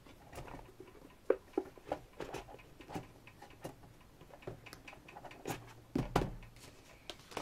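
Rustling, tapping and light clicks of a CD album's paper and card packaging and photocards being handled and put back together, with a louder clatter about six seconds in.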